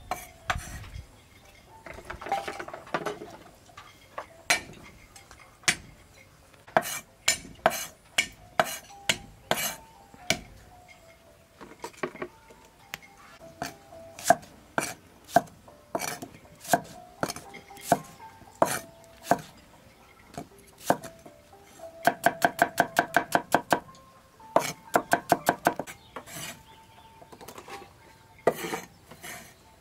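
Cleaver chopping shallots and garlic on a thick round wooden chopping block: single chops at irregular intervals, then a fast run of about eight chops a second for some two seconds about three-quarters of the way through, followed by a shorter quick run.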